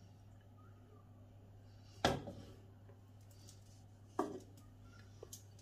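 Two sharp knocks of kitchenware, about two seconds apart, each ringing briefly, over a steady low hum.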